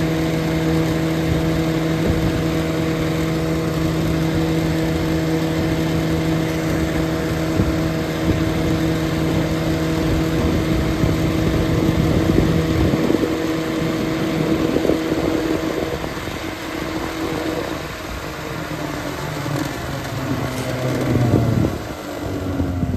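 Early-1970s Evinrude 9.5 hp two-stroke twin outboard running steadily under way. In the last several seconds it is throttled back and its pitch falls.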